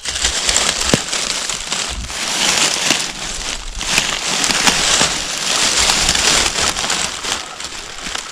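Loud, dense rustling and crunching of dry leaves and brush from hurried movement close to the microphone, with many small irregular cracks.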